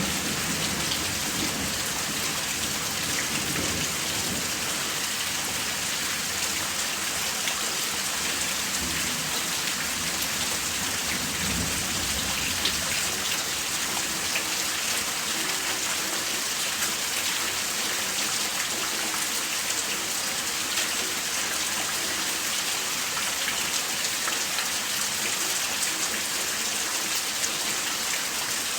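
Heavy rain pouring steadily in a dense, even hiss. A low thunder rumble dies away in the first few seconds, and a fainter rumble follows near the middle.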